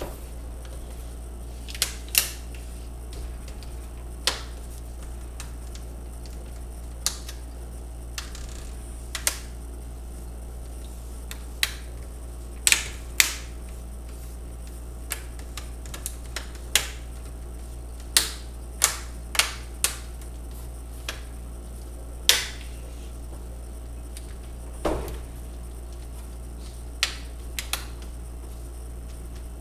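Plastic clips of a laptop screen bezel snapping into place one by one as it is pressed around the lid: sharp single clicks at irregular intervals, some in quick pairs.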